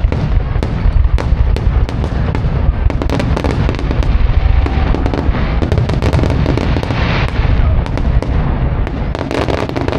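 Fireworks display: a rapid, dense run of bangs and crackling pops over a continuous low rumble of explosions.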